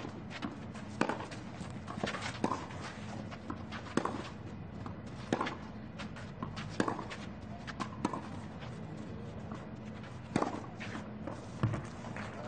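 Tennis rally on a clay court: crisp racket-on-ball hits traded back and forth, roughly one every second or so, over a steady background of crowd and court ambience, with the two loudest hits near the end.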